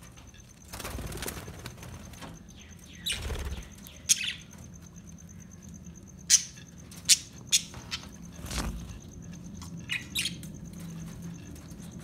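A flock of budgerigars in an aviary: several short, sharp chirps between about four and eight seconds in, with a few wing flutters among them.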